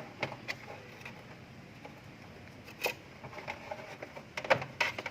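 Scattered light clicks and taps of a multimeter's probes and a new refrigerator defrost fuse being handled during a continuity check, with a quick pair of louder clicks near the end.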